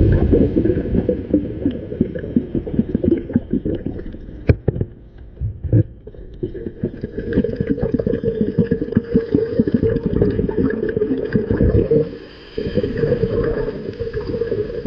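Scuba divers' exhaled air bubbling out of their regulators, heard underwater as a loud, dense gurgling and crackling, with a short lull near the end.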